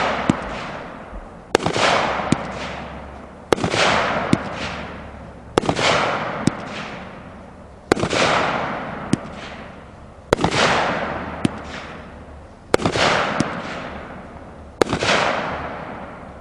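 A Planet X Blueberry Muffin 200 g eight-shot cake firing titanium gold coconut shells with blue star and gold strobe. There are seven sharp reports about two seconds apart, each followed by a fading hiss and a few smaller pops.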